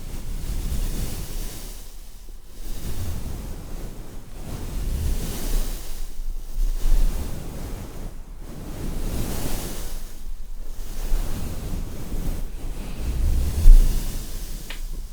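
Sea waves washing in and drawing back, swelling and fading about every two seconds, with wind rumbling on the microphone.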